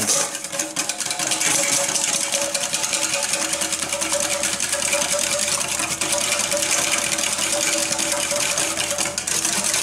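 Wire whisk beating egg yolks with mustard and vinegar for mayonnaise in a stainless steel bowl: a rapid, steady clatter of the whisk wires against the metal, over a faint steady tone.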